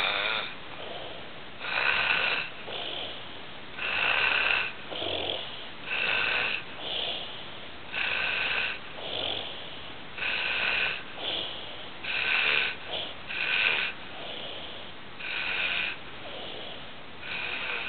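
A sleeping man snoring: loud snores about every two seconds, with quieter breaths in between.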